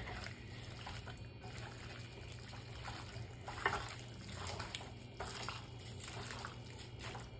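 A hand kneading raw mutton with sliced onions and spice paste in a metal pot, making irregular soft wet squishing sounds as the meat is marinated. A steady low hum runs underneath.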